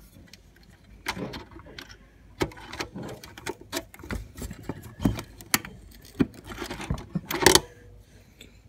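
Irregular small metallic clicks, taps and scrapes of pliers working a wire connector onto the ceramic terminal block of an electric glass-ceramic hob's heating element, with a louder clatter near the end.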